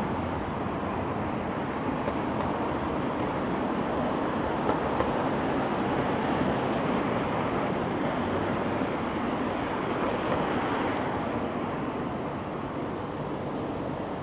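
Steady wash of city road traffic mixed with wind on the microphone, swelling slightly in the middle.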